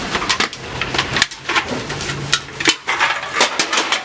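Aluminium cans clattering and clanking into a recycling hopper: many quick, irregular metallic knocks, several a second, with a low hum underneath near the middle.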